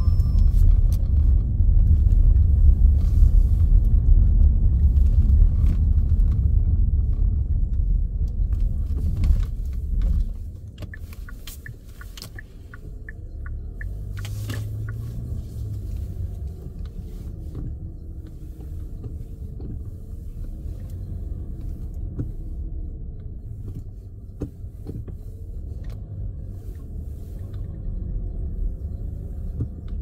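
Car cabin noise while driving out of an underground car park: a loud low rumble of engine and tyres climbing the ramp's grooved anti-slip surface for about the first ten seconds. It then drops suddenly to a quieter steady drone on the smooth level floor, with faint rising and falling squeaks and a few light knocks.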